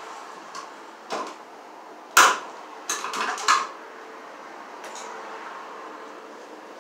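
Hand tools clinking and knocking as they are handled. A sharp knock about two seconds in is the loudest, followed by a quick run of clinks and a faint click near the end.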